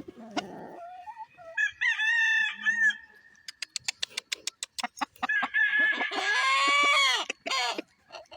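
Roosters crowing: a shorter crow about two seconds in, then a long, loud crow near the end. Between them comes a quick run of sharp clicks.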